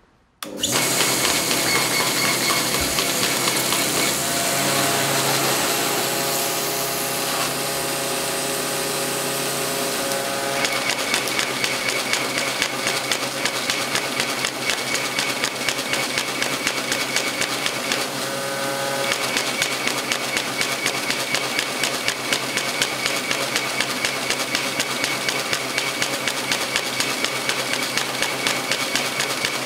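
Air-feed paper folding machine starting up: its compressor cuts in suddenly with a steady rushing noise, and about ten seconds later the feed motor joins with a high whine and a fast, regular clatter as sheets run through.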